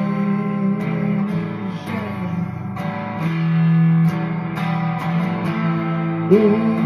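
Guitar playing steady strummed chords, with a sliding pitch near the end.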